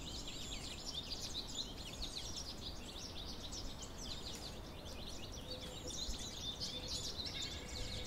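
Faint wild birdsong: many short, high chirps from small birds overlapping throughout, over a low steady background rumble.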